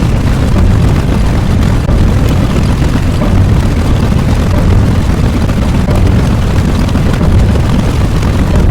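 Loud, steady, low rumbling noise.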